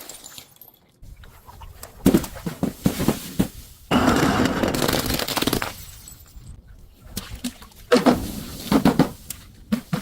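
Objects being crushed and breaking: sharp cracks and snaps about two seconds in, a longer crunching stretch from about four seconds, and another cluster of cracks near the end.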